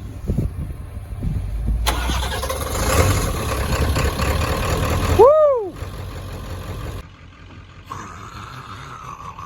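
Pickup truck engine starting and running, louder for a few seconds, with a brief squeal that rises and falls about five seconds in; the sound then drops abruptly to a quieter steady hum.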